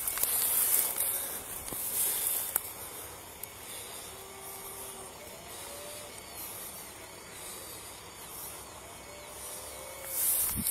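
Steady faint hiss of night-time outdoor ambience picked up by a body-worn camera, a little louder in the first couple of seconds.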